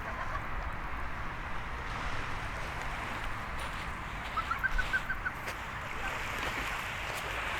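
Steady wash of sea surf and wind. About four seconds in comes a quick run of about eight short goose honks.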